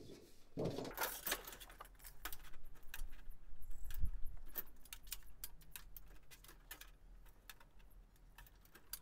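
A piece of sheet-metal flashing is flipped over and set onto a sheet-metal brake, with light metallic rattling and many small clicks as it is slid into place and measured. There is a scraping rustle about a second in and a dull knock about four seconds in.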